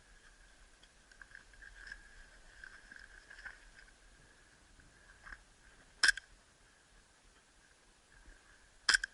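Two sharp cracks from an airsoft pistol being fired, about three seconds apart, over a faint steady background hiss.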